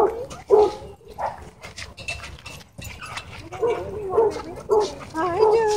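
A dog yipping in short, wavering pitched calls: a couple near the start, a quieter stretch, then a quick run of them over the second half.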